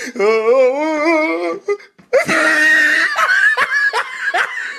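A person laughing hysterically: a long wavering, high cackle, a brief pause about two seconds in, then a louder shrieking laugh that breaks into short repeated gasps of laughter.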